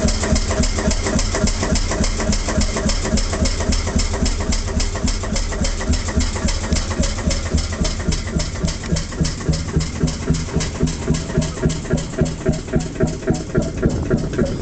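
Seffle 110FV two-stroke hot-bulb (semi-diesel) boat engine idling with a slow, even beat of about four strokes a second. The beats stand out more distinctly near the end.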